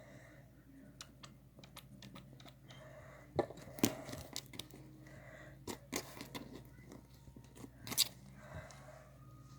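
Butter slime being handled and kneaded by hand: scattered sticky clicks and crackles, loudest about four and eight seconds in.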